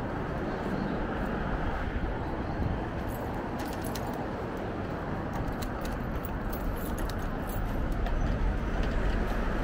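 Steady wind rush and road noise while riding an electric bike through city traffic, with light rattling clicks in the middle; the rush grows a little louder near the end.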